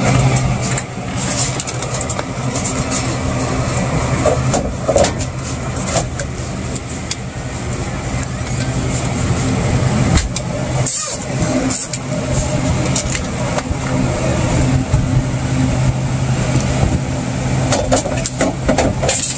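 Steady, loud hum of a running machine with a constant low tone, with a few sharp clicks from work on the wiring over it.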